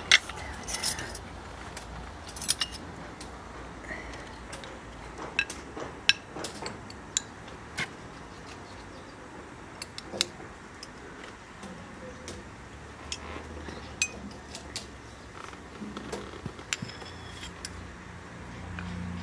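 Metal teaspoons clinking against glass tea cups and saucers as jam is spooned out and tea is stirred: a scattered series of sharp clinks, the loudest right at the start.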